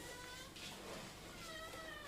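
Domestic cat meowing faintly twice, a short mew near the start and a slightly longer, lower one near the end.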